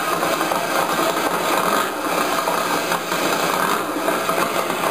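An engine running with a steady, rough buzz.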